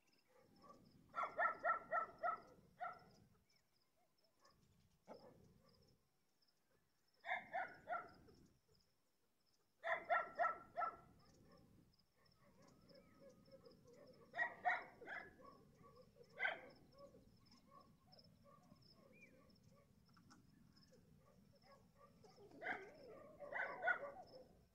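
A dog barking in quick runs of several barks, about half a dozen bunched together a second in, then further runs every few seconds.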